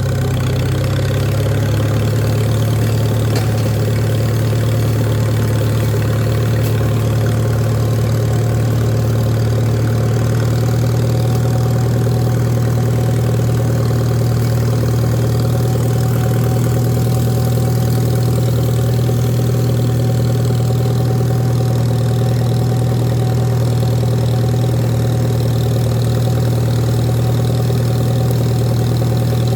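Farmall tractor engine running at a steady speed, with an even low hum.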